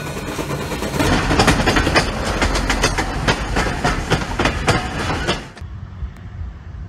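Passenger railcars rolling past close by, their wheels clacking over rail joints in a rapid, irregular run of sharp clicks over a rumble. It cuts off suddenly near the end, leaving a quieter low rumble.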